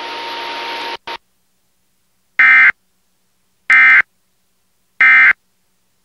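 Emergency Alert System digital data tones sounding three times, each burst about a third of a second long and about 1.3 seconds apart: the end-of-message code that closes an EAS alert. Before them, about a second of broadcast hiss that cuts off.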